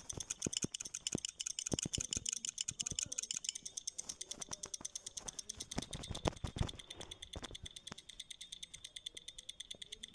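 A phone stopwatch app's ticking sound, a fast, even tick while the stopwatch runs. Over it come quick, irregular clicks from rapid taps on the lap button, thickest in the first few seconds.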